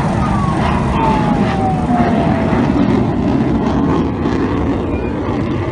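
Jet aircraft flying past: a loud steady roar, with an engine whine that falls in pitch over the first two or three seconds as it goes by.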